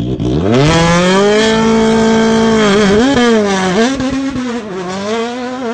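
Sports car engine revving. A low rumble rises into a high rev within the first second and holds steady, then dips and picks up again a few times near the middle and end.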